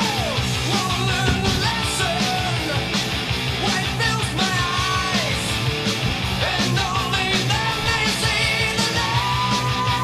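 Heavy rock song with sung and shouted vocals over distorted guitars and drums, laid over the video as a soundtrack.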